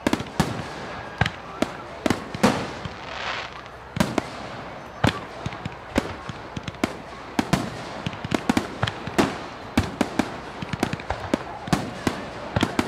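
Fireworks display: a rapid, irregular string of sharp bangs and crackling pops, several a second, with a brief hiss about three seconds in.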